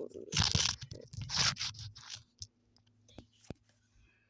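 Packaging of a toy bow-and-arrow set being torn open by hand: several rough ripping tears in the first two seconds, then a few small clicks and taps as it is handled.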